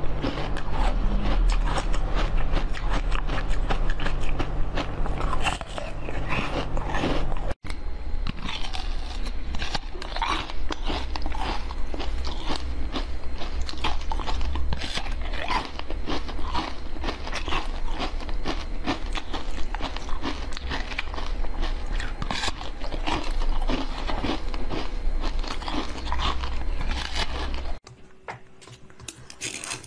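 Close-miked biting and crunching of frozen jelly, a fast run of crisp cracks and crunches. It breaks off briefly twice, and the last two seconds are much quieter.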